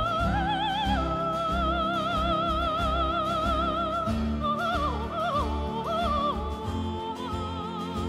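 Background music: an operatic voice holding long notes with wide vibrato, a few shorter falling phrases about halfway through, over steady orchestral accompaniment.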